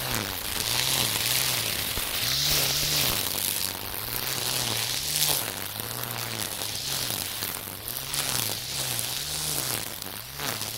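Cordless Makita 40V brushcutter spinning nylon trimmer line through thick weeds, its pitch rising and falling over and over as the head sweeps back and forth through the growth, with a steady hiss of line cutting grass.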